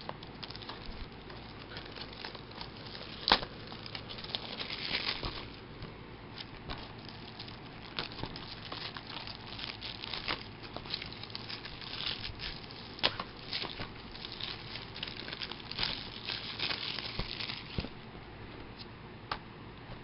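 Plastic shrink wrap being picked at, peeled and crinkled off a Blu-ray case, a run of crackling with many small clicks. There is a single sharp click about three seconds in, and several denser bursts of crinkling follow.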